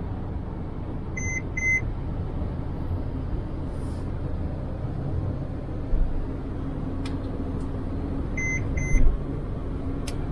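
Steady road and engine noise inside a moving vehicle, with two short high electronic beeps in quick succession about a second in, and another such pair later on.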